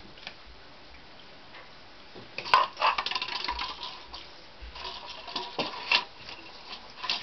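Tibetan terrier puppies scrambling on a tiled floor, their claws clicking and scraping. A sharp clatter comes about two and a half seconds in, followed by a few busy seconds of tapping and scuffling.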